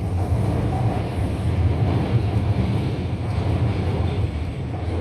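Shanghai Metro Line 14 train running between stations, a steady low rumble of wheels and traction motors heard inside the carriage.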